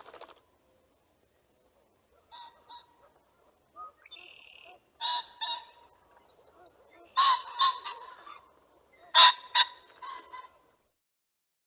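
Pheasant calling: short, loud double calls, each pair about half a second apart, repeated about every two seconds, with fainter calls in between.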